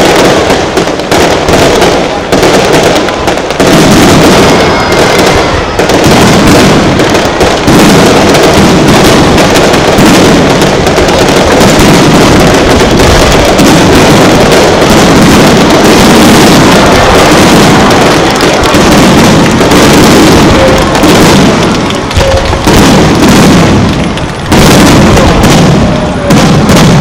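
Aerial fireworks display in a rapid barrage: shells launching and bursting one after another, many loud bangs in quick succession almost without a break, easing briefly twice near the end.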